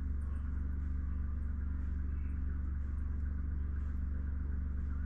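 Steady, even low machine hum with no change in pitch or level.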